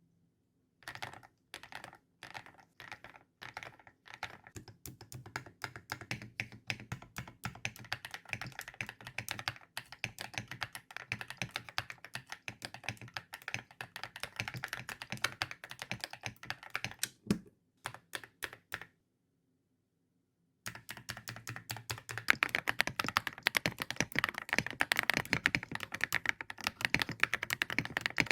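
Typing on a mechanical keyboard. It starts with a few slow, separate keystrokes, then runs into fast, steady typing. About two-thirds of the way through it stops for about two seconds, then resumes faster and louder.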